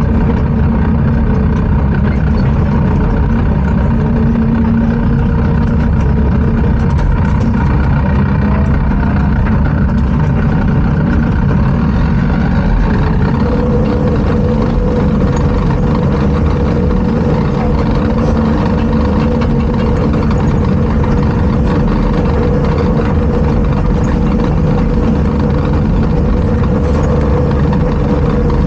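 Bulldozer's diesel engine running steadily as it works the pad, with a higher steady tone joining about thirteen seconds in.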